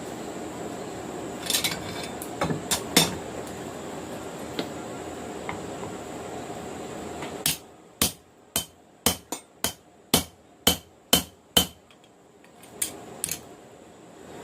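Hammer blows on steel at the anvil while forging a knife blade: a few scattered strikes, then from about halfway a run of about nine sharp, ringing blows at roughly two a second, and a couple more near the end. Steady background noise is present in the first half and drops away when the run of blows begins.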